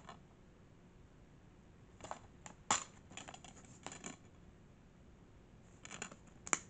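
Plastic DVD case being handled and opened: a cluster of sharp clicks and rattles about two seconds in, and a few more clicks near the end.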